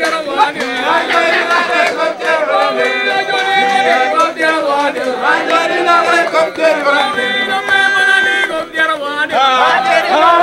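A group of voices singing together in chorus, many voices overlapping.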